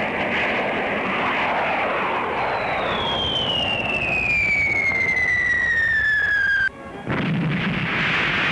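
Jet aircraft passing low overhead: a loud rushing roar, with an engine whine that falls steadily in pitch over about four seconds and cuts off abruptly near the end.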